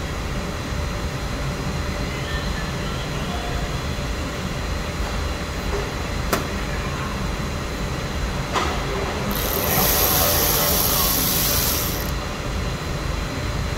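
A screwdriver working the wheel arch liner screws: a few sharp clicks over a steady low workshop rumble, and a loud hiss for about two and a half seconds a little past the middle.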